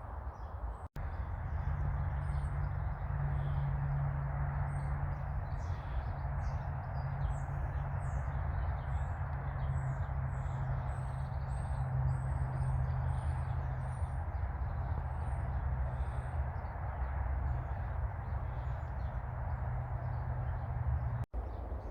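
Small birds chirping, many short high calls one after another, over a steady low rumble of outdoor background noise.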